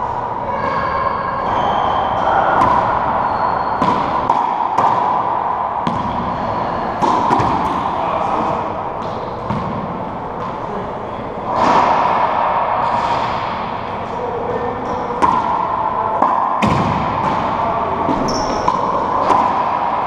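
Racquetball play in an enclosed court: the sharp smack of the ball off racquets, walls and floor again and again, each hit echoing around the court. Short high squeaks of sneakers on the hardwood floor come between the hits.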